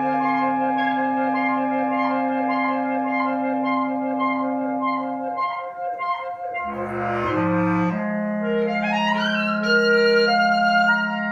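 Slow contemporary music of long held tones. About two-thirds of the way through, a short noisy swell leads into a new, lower chord, and then a quick rising run of notes.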